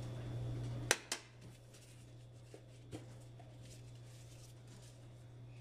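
A metal spoon clinking sharply twice against hard kitchen surfaces about a second in, followed by a couple of faint ticks. Under it runs a low steady hum that drops in level at the first clink.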